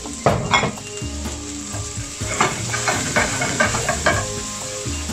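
Curry base of oil, onion, garlic and tomato puree sizzling in a non-stick frying pan as freshly added paprika fries in it. A plastic slotted spatula stirs and scrapes across the pan several times.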